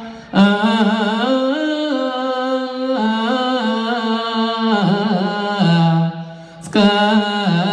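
A solo male voice chanting Ethiopian Orthodox Yaredawi zema, holding long notes with wavering ornaments on them. It breaks briefly for breath at the start and again about six and a half seconds in.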